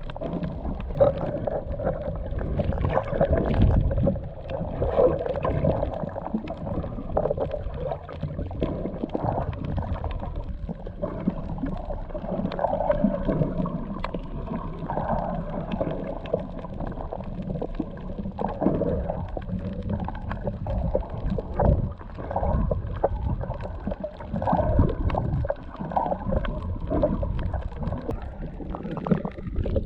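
Muffled gurgling and sloshing of water, heard through a camera held underwater during snorkelling; an irregular low churning with no high sounds.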